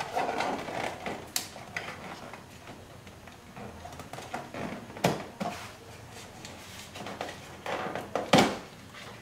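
Plastic seat belt trim cover of a C6 Corvette being worked loose and lifted off by hand: a run of small clicks, scrapes and light knocks. A sharper knock comes about five seconds in, and the loudest near the end.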